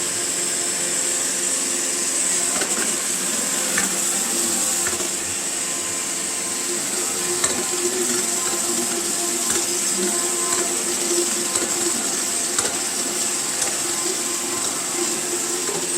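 iRobot Roomba i7 robot vacuum running with its side brush removed: a steady whir with a high whine and a low rumble from the back of the robot, with a few light clicks as it goes over tile. The rumble is still there with a brand new wheel fitted, and the owner finds it much louder than it used to be.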